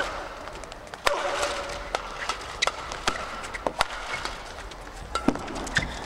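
Badminton doubles rally: sharp racket strikes on the shuttlecock at an irregular pace, with court shoes squeaking on the court mat between them.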